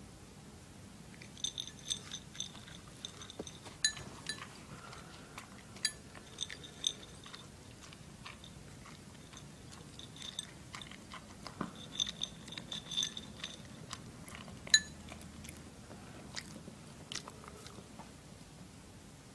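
Toy poodle eating dry kibble from a ceramic bowl: crunching and chewing, with frequent sharp clinks against the bowl, some of them ringing briefly. The loudest clink comes about three-quarters of the way through.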